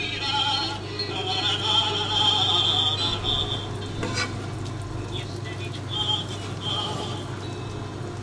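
Music with a wavering, vibrato singing voice over a steady low hum; a single sharp click about four seconds in.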